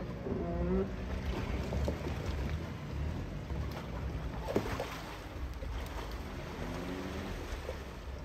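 Jeep engines running at crawling speed as they drive through a shallow muddy creek, a steady low rumble with a single sharp knock a little past halfway.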